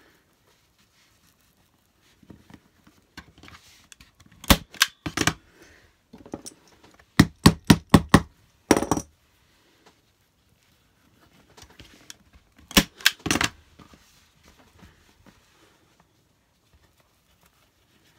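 Arrow TT21 manual staple gun firing staples through fabric into a wooden board: sharp snaps in three groups, three shots, then a quick run of about five, then three more near the end, with light handling noise between.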